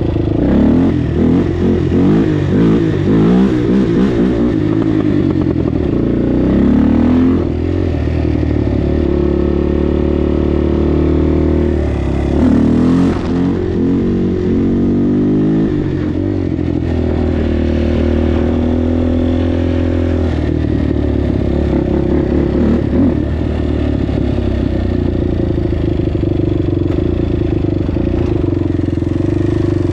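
Kawasaki KFX400 quad's single-cylinder four-stroke engine running under way. Its pitch climbs in repeated rising sweeps as it revs up through the gears in the first half, then it runs at a steadier speed.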